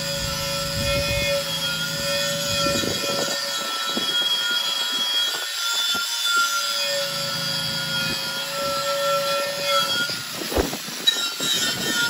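Angle grinder with a wire wheel running, a steady motor whine over rough scraping as the wheel strips old paint off a cast aluminum horn. The whine fades and comes back twice, with a few sharp knocks near the end.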